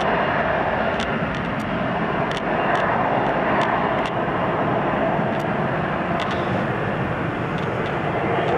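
Boeing 737 jet airliner's engines running at high power during the takeoff roll: a loud, steady jet roar that swells and eases slightly as the aircraft moves away down the runway.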